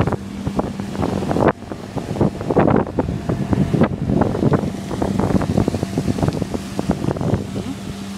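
Wind gusting and buffeting the microphone in irregular rushes, dropping off suddenly about a second and a half in, with a steady low hum underneath.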